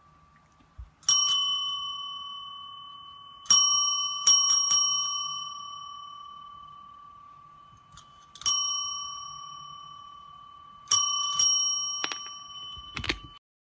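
Chrome desk call bell dinged about seven times, sometimes two in quick succession, each ding ringing on and fading over a few seconds; a few light clicks near the end.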